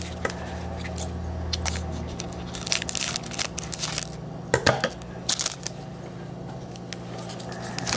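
Foil wrapper of a Leaf Certified Materials football card pack crinkling and rustling as it is handled, in several short bursts.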